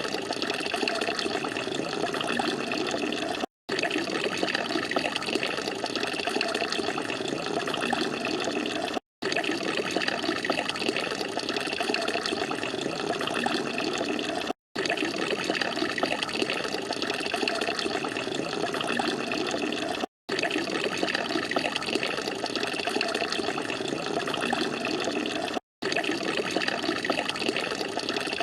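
Water from a garden fountain splashing and falling steadily into its basin. The sound cuts out for an instant about every five and a half seconds.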